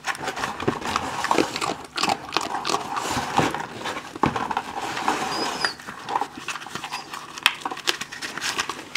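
A small dog chewing a treat on the floor: a run of irregular crunches and clicks.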